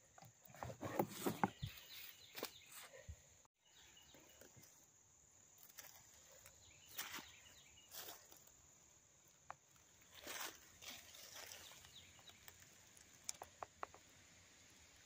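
Faint handling noises on a plastic trash can: rustles, scrapes and clicks as it is touched and tipped, busiest in the first two seconds, with a few sharp ticks near the end.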